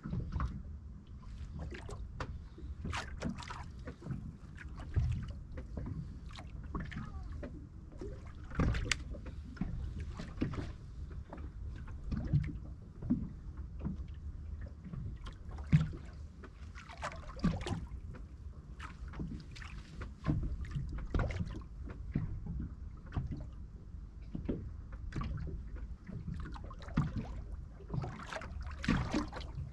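Water sloshing and slapping against a small boat's hull: irregular short splashes every second or so over a steady low rumble.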